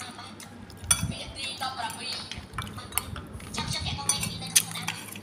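Metal spoon clinking and scraping on a ceramic dinner plate while rice is scooped up, with sharper clinks about a second in, around three seconds in, and near the end.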